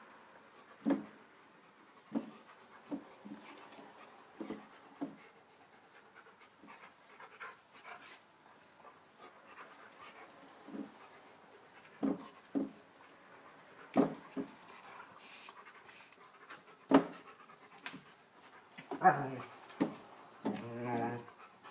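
A dog panting and giving short, sharp snorts every second or two, close up, as it noses at a cat. Near the end comes a drawn-out, pulsing whine.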